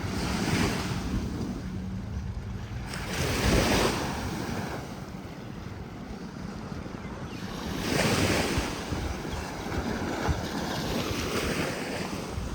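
Sea waves breaking on a sandy beach, surging in three or four times in a row, with wind rumbling on the microphone.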